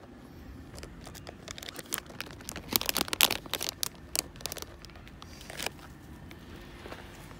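Close rustling and crinkling, a dense run of sharp crackles from about one and a half to four and a half seconds in, loudest around three seconds, as a grey squirrel scrabbles over a person's lap hunting for food.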